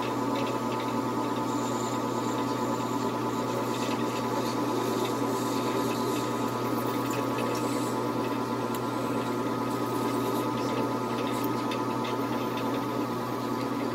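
Metal lathe running with its chuck spinning: a steady motor and gear hum with an even whine, and faint light ticks scattered through.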